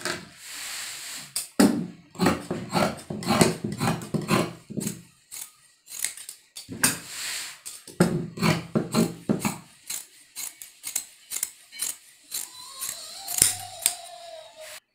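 Tailor's shears cutting through layered dress fabric: runs of quick snips, with the cloth rustling as it is shifted between the runs.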